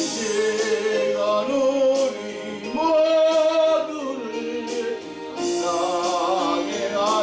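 A singer performing a Korean gospel song over instrumental accompaniment, holding long notes with vibrato.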